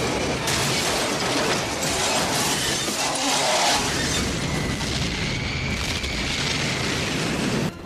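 Film sound effects of a jumbo jet smashing through a multi-storey parking garage: a steady din of crashing metal, shattering and booming. It cuts off abruptly just before the end.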